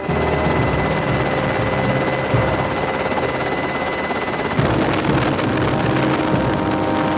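Steady engine noise with a heavy hiss, a few faint steady tones running through it; the sound shifts slightly about four and a half seconds in.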